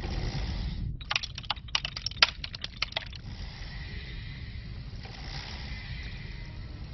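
Low, steady rumble like wind, with a quick run of sharp clicks and ticks starting about a second in and lasting about two seconds.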